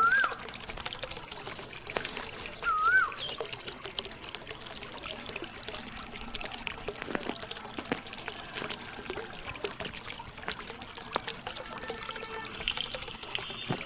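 Small stream of water pouring and trickling steadily, from a miniature hand pump. A short warbling whistle sounds twice, at the start and about three seconds in.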